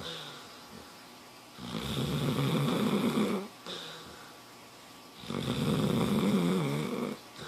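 Snoring: two long, loud snores about three and a half seconds apart, each lasting nearly two seconds and each followed by a brief short sound, with quiet breathing in between.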